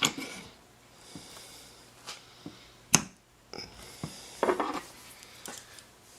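Scattered light clicks and knocks of small parts being handled on a workbench during a power window motor rebuild. The sharpest click comes about three seconds in, and a short cluster of clatter follows a second and a half later.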